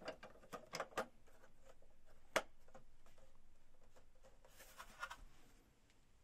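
Plastic LEGO pieces clicking and tapping as a wall section of the model is handled and fitted into place: a few light clicks, one sharp click about two and a half seconds in, and a short scrape near five seconds.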